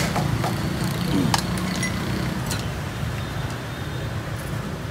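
Steady low hum of street traffic, with a few sharp clinks of ceramic bowls and metal utensils.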